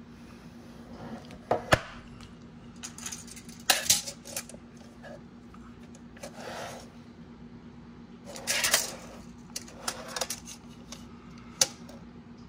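Steel tape measure (Lichamp 25 ft) being pulled out and laid across a metal switch case. Its blade and end hook give several sharp clicks and short metallic rattles and scrapes.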